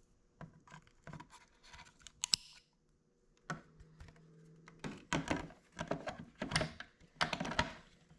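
Small plastic clicks and scraping from hands working an electrical connector and wiring into a car's side mirror, with a sharp click about two seconds in and a busier stretch of scraping and rustling in the last three seconds.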